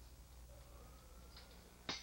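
Faint low electrical hum, with a single sharp click near the end.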